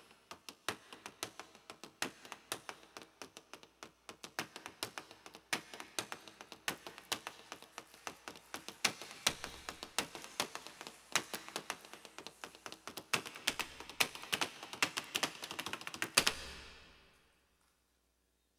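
Scattered hand-clapping from an audience: separate claps, a few a second at first, growing thicker and louder, then stopping about sixteen seconds in and fading away.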